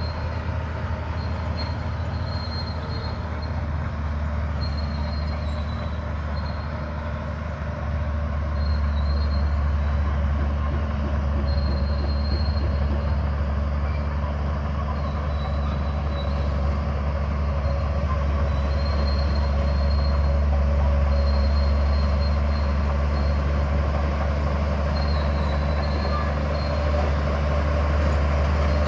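Bulldozer's diesel engine running steadily under load, with the clank of the crawler tracks and faint high squeals coming and going. The engine gets louder about eight seconds in and stays up.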